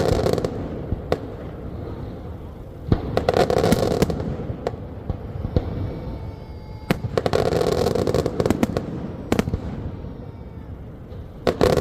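Fireworks exploding in volleys: dense clusters of sharp bangs and crackling about every four seconds, with single bangs between them.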